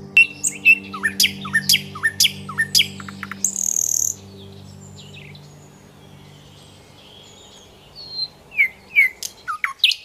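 Small birds chirping: a quick run of sharp, steeply falling notes, a brief harsher call, then more falling chirps near the end.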